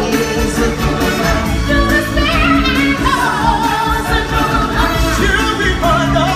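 Live stage-show music: voices singing over a loud band with a steady beat.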